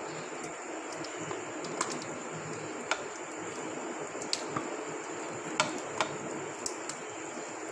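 Thick yoghurt-marinated mutton sliding out of a steel bowl into a non-stick kadhai, with a metal spoon scraping and clicking against the bowl about eight times at irregular intervals over a steady low hiss.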